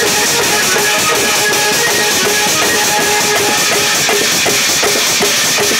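Marfa drumming: handheld frame drums struck with sticks and a large barrel drum beating a fast, loud, steady rhythm.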